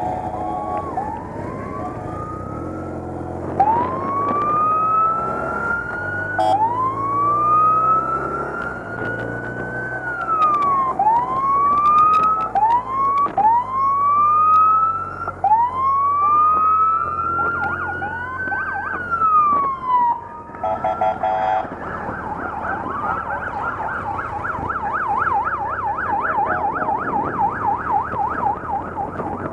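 Several police motorcycle sirens wailing together, each rising and falling out of step with the others, over the low hum of the motorcycle engines. Short horn blasts sound at the start and again about two-thirds of the way through, after which the sirens switch to a fast warbling yelp.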